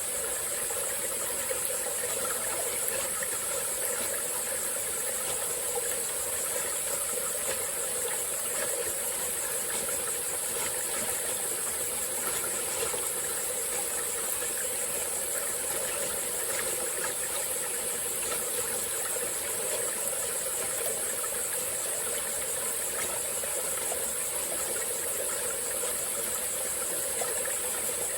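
Small tropical-forest stream flowing steadily over its bed, with a constant high-pitched drone of insects over it.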